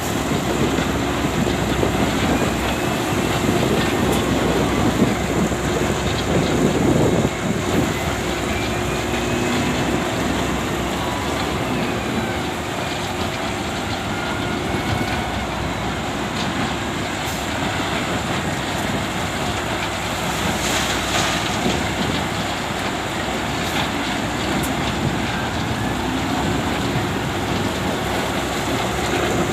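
SDLG excavator's diesel engine running steadily under load with faint rising and falling hydraulic whines as it loads a dump truck.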